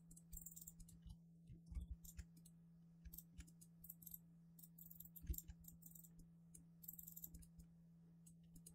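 Faint, scattered clicks of a computer mouse and keyboard over a low, steady hum.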